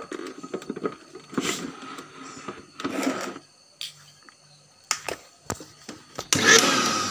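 Clicks and knocks as the reassembled electric blender is handled and set up. About six seconds in, the blender's motor switches on and runs loud and steady: a test run after its faulty switch was replaced.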